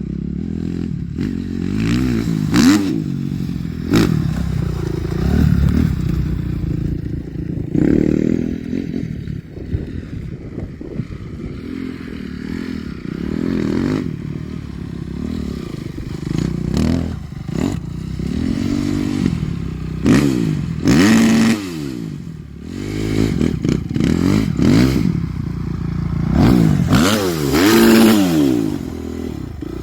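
Suzuki RM-Z four-stroke single-cylinder motocross bike being revved over and over, its engine note rising and falling again and again, with several louder, sharper revs along the way.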